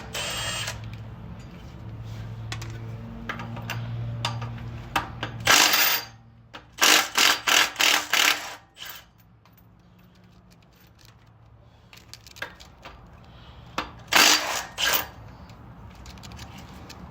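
Impact wrench running in short rattling bursts on the pressure plate and flywheel bolts: a string of about six quick bursts a few seconds in and two more near the end. A low steady hum lies under the first few seconds.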